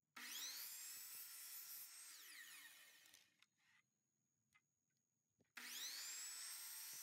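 Electric compound miter saw switched on twice, each time its motor spinning up with a rising whine and running about two seconds while the blade cuts small vinyl trim-base pieces. After the first cut the motor is released and winds down with a falling whine.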